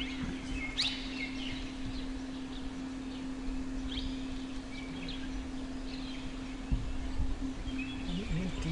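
Forest ambience: scattered short, high bird chirps over a steady low hum, with one soft thump about seven seconds in.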